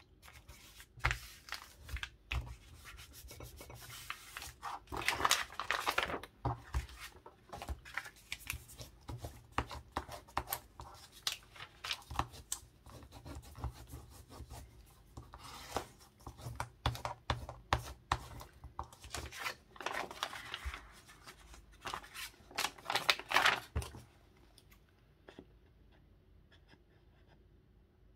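Paper being rubbed and handled on a work table: repeated scratchy strokes with sharp taps and clicks, dying down about four seconds before the end.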